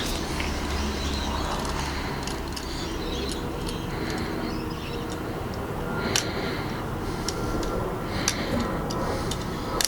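Small clicks and scrapes of fingers working at a lock cylinder stuck in a metal electric strike, which will not come out. A steady low hum runs underneath.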